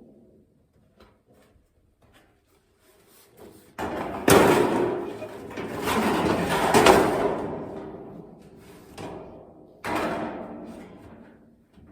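Sheet-metal duct pieces clanking and rattling as they are handled and fitted together, with loud metallic bangs in two spells after a few quiet seconds.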